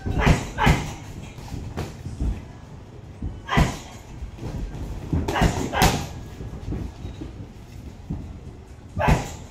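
Gloved punches landing in boxing sparring: about six short, sharp hits with gaps of a second or more, two in quick succession at the start.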